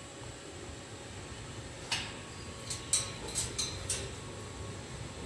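A macaw's beak and claws clicking on the wire bars of its cage as it grips and climbs: about six sharp, light taps over two seconds, starting about two seconds in.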